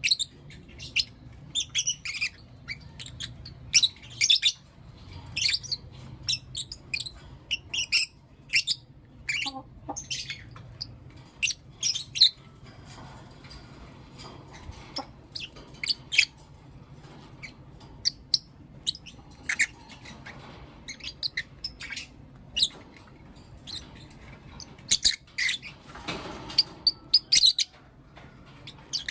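Lovebirds chirping and calling: a stream of short, high-pitched chirps and squeaks, busiest in the first dozen seconds and again near the end, thinner in between. A faint low hum runs beneath.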